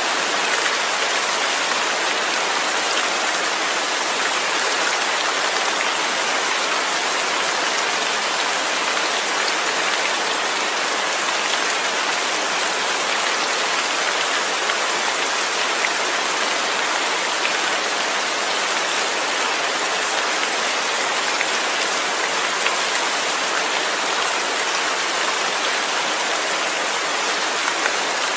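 Steady rain falling, a dense even hiss with scattered small drop ticks.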